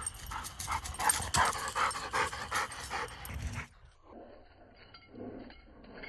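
A dog panting in quick, rhythmic breaths, about three a second. After about three and a half seconds the sound turns quieter and duller.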